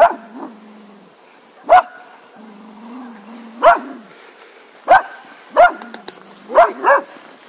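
A cocker spaniel barking: six short, sharp single barks about a second apart, the last two in quick succession.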